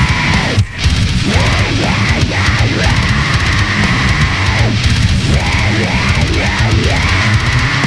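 Grindcore/death metal track: heavily distorted guitars over very fast drumming, with a momentary stop in the music well under a second in.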